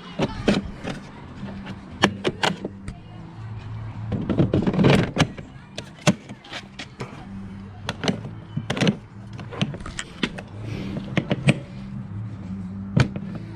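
Plastic-and-metal clicks, knocks and clunks of the mower's handle and latches being worked by hand. The busiest stretch of handling comes about four to five seconds in, over a low steady hum.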